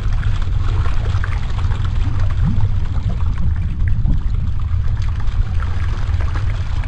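Intro sound effect under a title animation: a loud, steady low rumble with a dense hiss over it.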